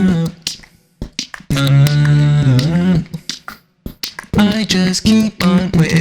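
A voice singing through autotune, its held notes locked flat and jumping in steps from pitch to pitch, in two phrases with a gap of about a second and a half between them. Sharp finger snaps keep time in the gaps.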